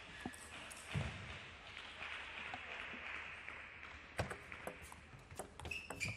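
Table tennis rally: the celluloid ball clicks sharply off bats and table several times in the second half, with low thuds of players' feet on the court floor and a brief shoe squeak near the end.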